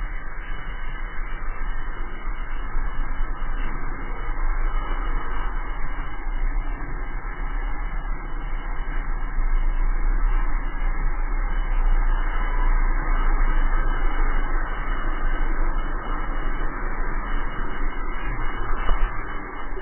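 Steady wind rush and road rumble from a drift trike rolling fast downhill on asphalt, with wind buffeting the trike-mounted camera's microphone; a little louder about halfway through.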